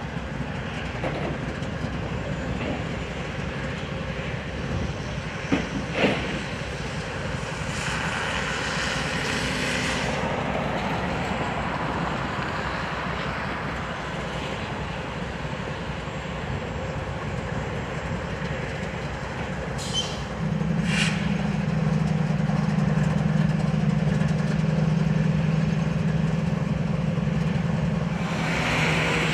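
Union Pacific freight train of loaded flatcars rolling past: a steady rumble and clatter of wheels on the rails, with two sharp knocks about six seconds in. From about two-thirds of the way through, a steady low hum joins in and the sound grows louder.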